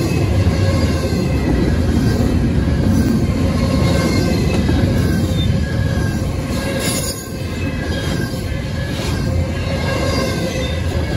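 Double-stack intermodal well cars of a freight train rolling past at close range: a steady rumble of steel wheels on rail, with faint steady high tones above it and a brief dip in loudness about seven seconds in.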